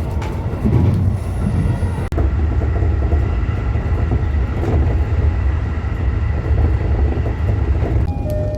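JR East E233-3000 series electric train under way, heard from inside the car: a steady low rumble from the wheels and running gear with a faint steady whine. A few steady tones join in near the end.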